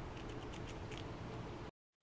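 A fox squirrel eating from a heap of seed mix: a quick run of small, sharp clicks over a steady faint hiss as it cracks and handles seeds. Near the end the sound cuts out completely.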